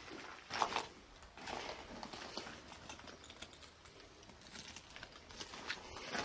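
Faint, irregular scuffs and rustles of someone walking while handling a phone camera, over a steady hiss; the loudest scuff comes about half a second in.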